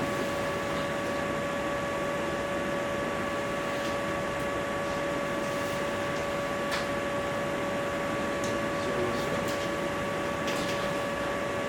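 Steady electrical hum with several fixed tones over constant hiss, the background of a low-quality lecture-room recording. A few faint, short ticks come through, at about seven seconds and near the end.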